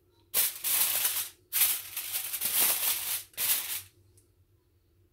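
Aluminium foil crinkling in three bursts as it is pressed and crimped by hand over a round tray, stopping about four seconds in.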